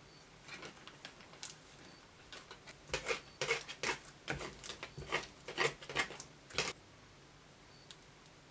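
Thin plastic icing pouch crinkling and crackling as a small plastic spoon presses and scrapes it against a tabletop. A few faint ticks come first, then a dense run of sharp crackles and taps for a few seconds, which stops abruptly.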